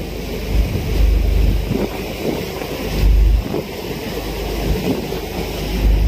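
Wind buffeting the microphone in uneven gusts, over a steady rush of wind and water from a boat under way.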